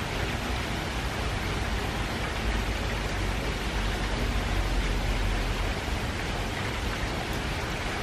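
Steady rain from the outer bands of a faraway typhoon, an even hiss of drops falling on the garden. A low rumble runs underneath and swells around the middle.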